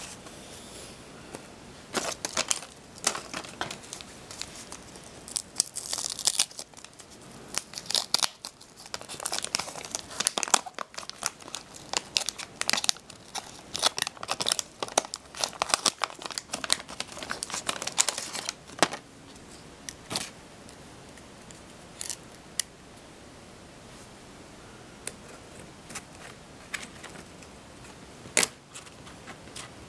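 Wax-paper wrapper of a 1985 Topps Garbage Pail Kids trading-card pack being torn open and crinkled: a dense run of crackling and tearing that lasts about 17 seconds. After that come only scattered light clicks and rustles as the cards are handled.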